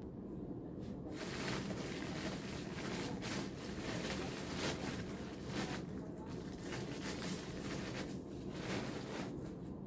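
Thin plastic carrier bag rustling and crinkling irregularly as hands open and go through it, starting about a second in, over a steady low hum.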